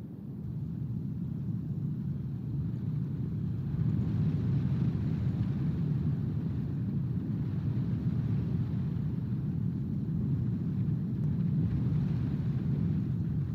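Wind buffeting an outdoor nest-camera microphone: a low, steady rumble that grows louder over the first few seconds.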